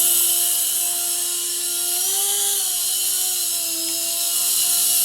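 LH-1211 micro coaxial helicopter in flight: its small electric motors and rotors give a steady whine with a hiss above it. The whine rises in pitch briefly about two seconds in and dips slightly near four seconds as the throttle changes.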